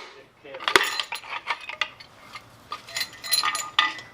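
Loose metal engine parts and tools clinking and rattling as they are handled and set down: a sharp clink about three-quarters of a second in, then scattered clinks, several with a brief metallic ring, in two clusters.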